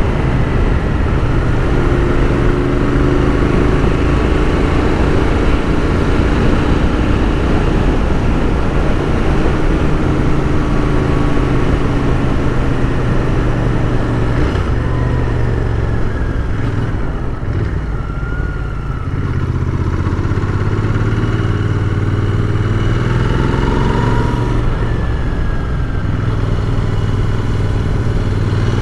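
Royal Enfield Continental GT 650's parallel-twin engine running as the motorcycle is ridden, with wind noise over it. The engine note shifts up and down, and the sound eases off briefly about two-thirds of the way through before picking up again.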